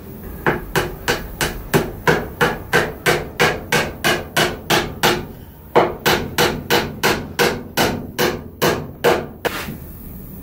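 Small hammer tapping a nail into a hole in a wooden coffee table's leg joint: a steady run of sharp blows, about three a second, with a short pause about halfway through.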